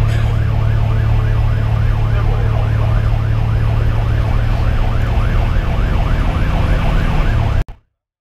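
Fire engine's electronic siren in a fast yelp, about three rising-and-falling sweeps a second, over the steady drone of the truck's 470 hp Detroit Series 60 diesel, heard from inside the cab. The sound cuts off abruptly near the end.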